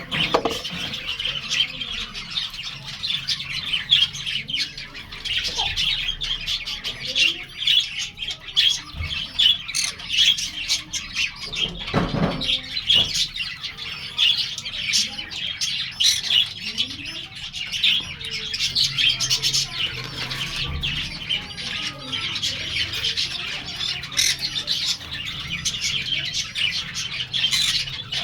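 Budgerigar chicks squawking and chirping in a continuous raspy chatter, many short calls overlapping. A low bump is heard about twelve seconds in.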